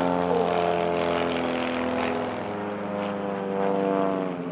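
Piston engines and propellers of two light aerobatic planes, a Laser 230 and a Thorp T18, droning steadily in flight, their note shifting a little in pitch and dipping briefly near the end.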